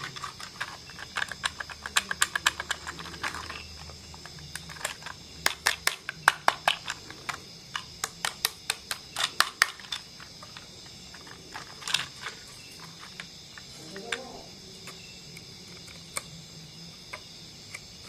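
Model train running on a layout: quick runs of sharp clicks, fastest early on and loudest in the middle, over a faint steady high whine.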